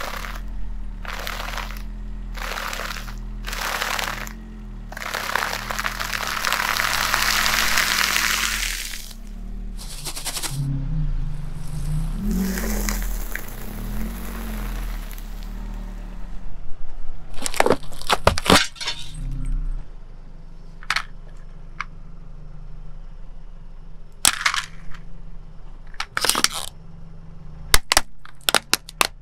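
A car tyre rolling slowly over a big plastic bag of corn puff snacks: the bag crinkles and the puffs crunch, loudest about five to nine seconds in. From about seventeen seconds on, a plastic toy truck cracks and snaps under the tyre in a string of sharp breaks. A car engine runs low underneath.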